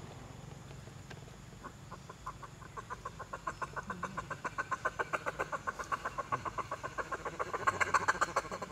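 A rapid, even series of short animal calls, about six a second, starting a couple of seconds in and growing louder toward the end.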